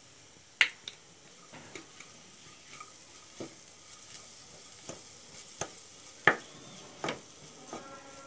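Wooden spatula stirring diced vegetables in a frying pan: irregular scrapes and knocks against the pan, the loudest about half a second in and just past six seconds in, over a faint sizzle of the vegetables frying.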